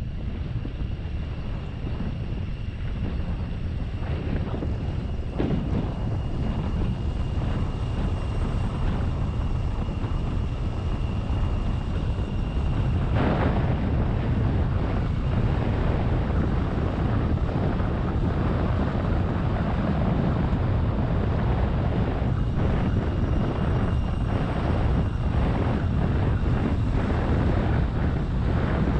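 Ute taxi driving along, heard from its open rear bed: steady engine and road noise with wind buffeting the microphone. It gets a little louder about thirteen seconds in.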